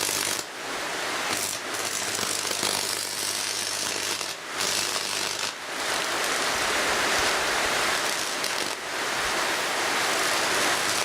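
Mains current arcing through a red-hot screwdriver shorted to earth: a steady hiss with a low mains buzz under it for about the first five seconds, broken by a few brief dips.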